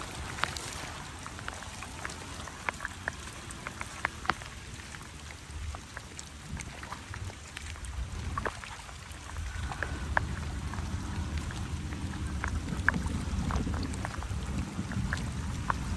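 Scattered drops and small splashes of water over a steady hiss, with a low rumble that grows louder in the second half.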